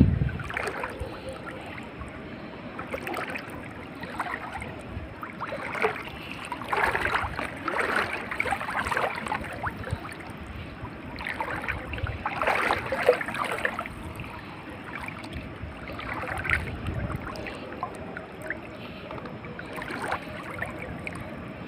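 Irregular sloshing and splashing of footsteps wading through shallow water, in uneven bursts that come and go, over a steady faint background hiss.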